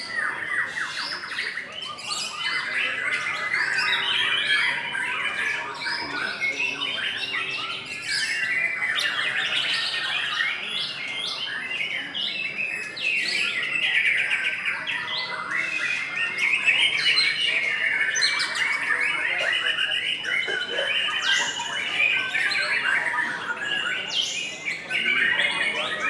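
Several white-rumped shamas singing at once in a dense, unbroken stream of varied whistled phrases and rapid repeated notes, the caged birds singing against each other in competition.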